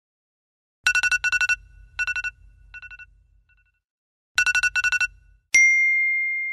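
Phone alarm ringtone: bursts of rapid electronic beeping that trail off in fading echoes, heard twice. Near the end a single bright chime rings out and slowly fades.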